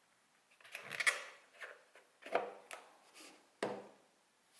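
A cardboard perfume box being handled and opened by hand, with the bottle taken out: a series of short knocks and scrapes, the longest about a second in.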